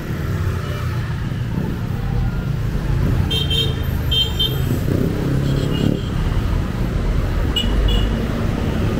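Busy street traffic: motor vehicle engines running close by in a steady low rumble, with a high horn tooting twice about three and a half seconds in and once more briefly near the end.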